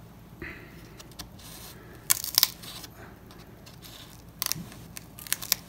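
Small flat screwdriver prying a fitted panel out of a foam RC airplane wing: faint scraping with scattered sharp clicks, a cluster about two seconds in and more near the end.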